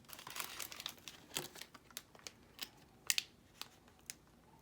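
Plastic snack packaging crinkling and rustling as it is handled, with a busy rustle over the first second and a half, then scattered sharp crackles.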